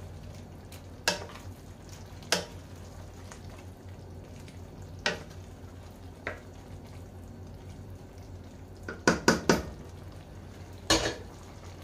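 Wooden spoon stirring fusilli in tomato sauce in a stainless-steel pan over a steady low hum, with occasional sharp knocks of the spoon against the pan and a quick run of three or four knocks about nine seconds in.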